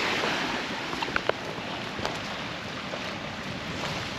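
Ocean surf washing against the rocks and shore, swelling near the start and again near the end, with wind on the microphone. A couple of brief clicks about a second in.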